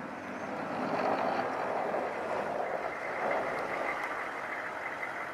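Chevrolet pickup with a front-mounted snowplow pushing snow as it draws near: the engine running under the load while the blade scrapes through snow over the pavement, a steady noisy sound that grows louder about a second in.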